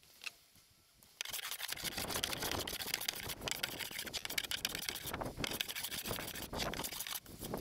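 Hand plane shaving a rough-sawn wooden board in repeated strokes, a continuous rasping scrape starting about a second in with short breaks between strokes, as the crown is planed down.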